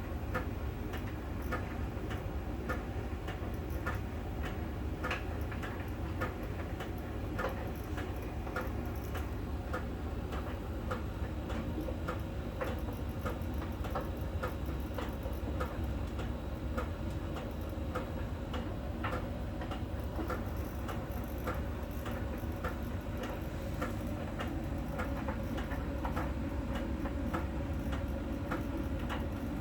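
Miele tumble dryer running through a drying cycle, a steady low hum of the turning drum with a quick, uneven ticking of about two or three clicks a second. The ticking comes from the drum's sensor, a small round ball rolling over a contact point on the outside of the drum at each turn, as a Miele technician explained it.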